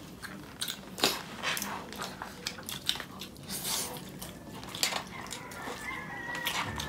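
Eating noises: plastic spoons and forks scraping and tapping in paper food bowls as two people eat, with chewing. The clicks and scrapes come at irregular intervals.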